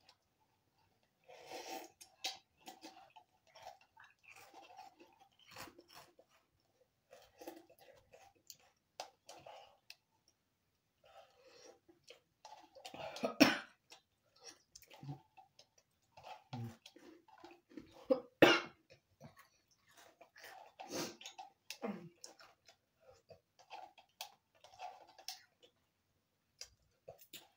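A person eating spicy instant noodles from a paper cup with a fork: irregular chewing and breathing, with now and then sharp clicks and knocks, the loudest about thirteen and eighteen seconds in.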